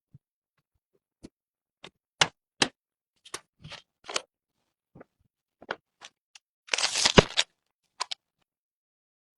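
Computer parts being handled and fitted during a PC build: irregular sharp clicks and light knocks, with a short rustling scrape about seven seconds in.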